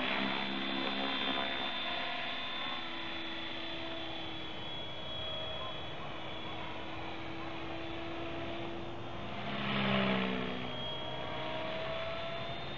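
Trim X-500 electric radio-controlled helicopter in flight: a steady whine from its motor and rotors, swelling louder for a moment about ten seconds in as it passes closer.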